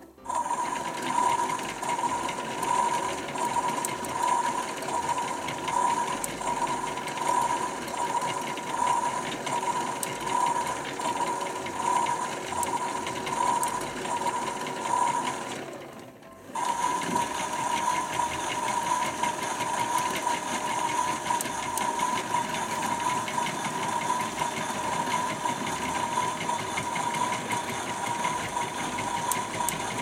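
Battery-powered Casdon Washmatic toy washing machine running, its small electric motor whirring as it turns the drum of clothes, with a whine that pulses at a steady rhythm. It cuts out briefly about halfway through and starts again, running more evenly after the restart.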